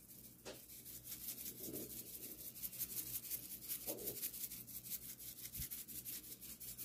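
Seasoning shaken from a shaker onto a raw steak: a fast, even run of dry, scratchy rattles that stops near the end.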